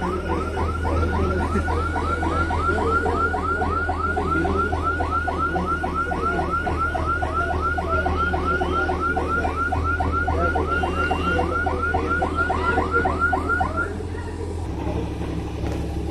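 A heavy crane's warning alarm repeats a falling electronic whoop about three to four times a second over the steady low hum of its diesel engine while it moves a steel girder. The alarm stops about 14 seconds in and the engine hum carries on alone.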